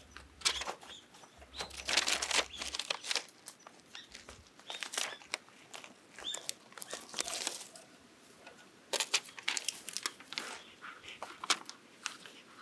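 Irregular rustling and scuffling bursts as a kitten grapples with and tugs at a toy it has caught.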